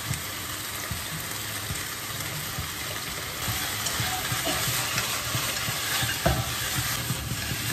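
Diced chicken sizzling in hot oil in a nonstick wok on a gas burner, stirred with chopsticks that clatter lightly against the pan. The sizzle grows a little louder about halfway through.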